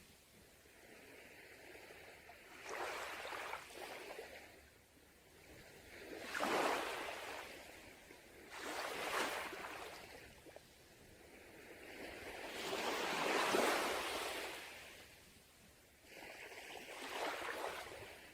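Sea waves breaking and washing up a beach, one after another. About five surges of rushing water rise and fall every few seconds.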